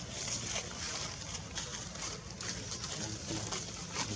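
Outdoor ambience: a steady high hiss with scattered crackles and a low hum, and faint distant voices near the end.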